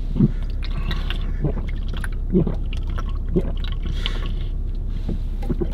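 A man gulping juice from a can in quick swallows, about one gulp a second, over a steady low hum.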